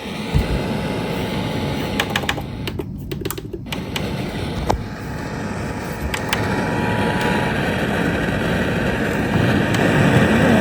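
FM radio static on a software-defined radio receiver: a steady hiss from between stations or a weak signal while the band is scanned. The hiss is broken by a few sharp clicks and a brief dropout about three seconds in. A faint steady tone sits under it for the first seven seconds or so, and the hiss grows a little louder in the second half.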